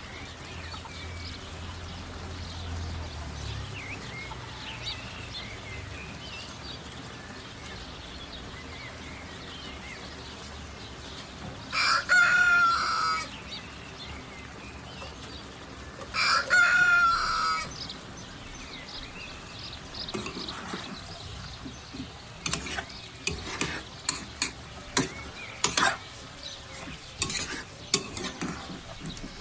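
A rooster crows twice, about four seconds apart, each crow over a second long and the loudest sound here, over a steady low hiss of the pot cooking. From about twenty seconds in comes a run of sharp clicks and knocks of stirring in the pot.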